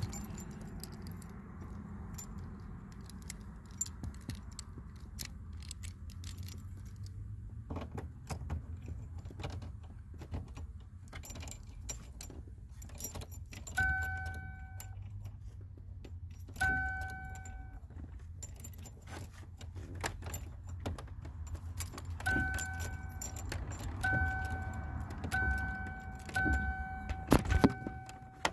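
A set of car keys jangling and clicking at the Fox-body Mustang's ignition lock cylinder, with many sharp clicks over a steady low hum. A car's dashboard warning chime sounds twice briefly midway, then repeats steadily near the end.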